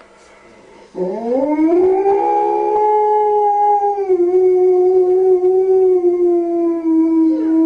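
Husky-type dog howling: one long howl that starts about a second in, rises in pitch, then holds steady with a slight drop partway through.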